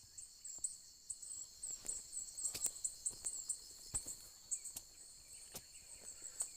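Insects chirping and buzzing in a steady high, thin drone, with scattered sharp clicks and taps throughout.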